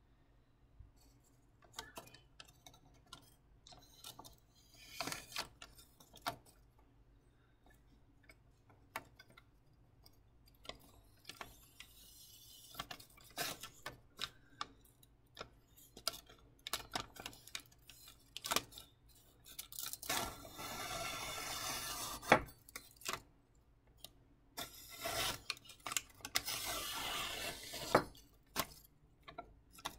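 Thin receipt paper rustling and crinkling in the hand, with several longer scraping stretches of a carbon steel gyuto blade slicing through the paper, the longest about two-thirds of the way in and again near the end. Scattered clicks and taps, with one sharp click about three-quarters of the way through.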